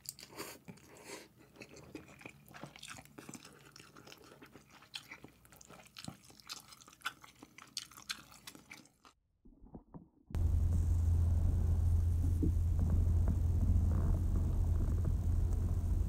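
Faint close-up eating of instant ramyeon: chewing, with many small clicks of a fork and chopsticks against a camping pot. About ten seconds in it goes near silent for a moment, then a much louder, steady low rumble of wind buffeting the microphone begins.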